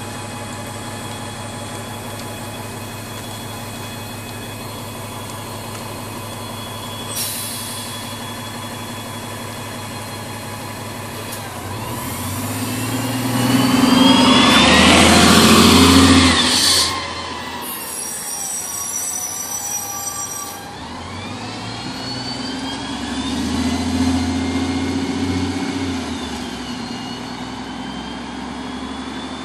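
A city transit bus with a Voith automatic transmission idles at a stop, with a brief hiss of air about seven seconds in. It then pulls away: the engine note rises through the gears, is loudest a little past halfway, drops off sharply, climbs again and fades as the bus drives off.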